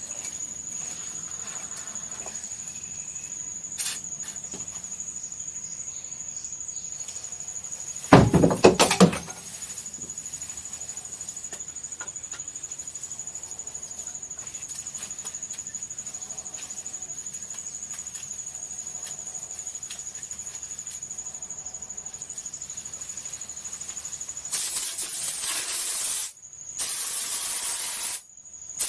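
A thin, steady high-pitched whine throughout, broken by a brief loud clatter about eight seconds in. Near the end come two loud hissing bursts of a two-component spray foam gun spraying insulation.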